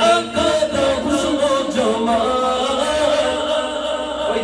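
A man singing a naat without instruments, drawing out long wavering melodic notes, amplified through a microphone.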